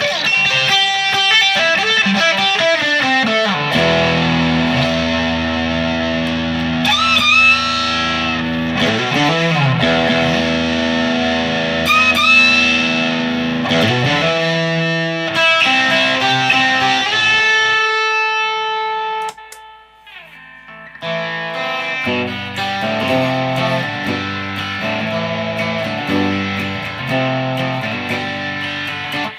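G&L ASAT Classic Tribute electric guitar with single-coil pickups, played through an amp with some overdrive. It plays sustained chords and lead lines with string bends, easing off briefly about two-thirds of the way in.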